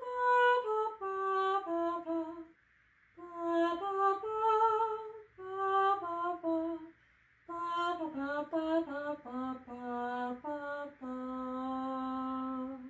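A woman sings a wordless tune on neutral syllables ("bum, ba"), unaccompanied, in triple meter. It comes in four short phrases with brief breaths between them and ends on a long held low note.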